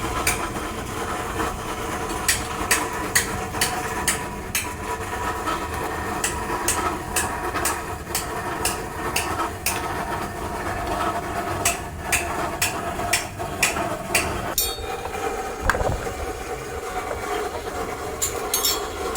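Repeated metal-on-metal hammer blows, irregular at about one to two a second, over a steady machine hum, as scrap compressors are worked on.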